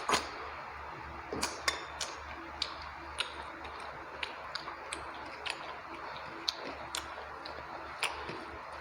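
Close-miked eating sounds: irregular wet clicks and smacks of a person chewing rice and chicken curry, over a steady low hum.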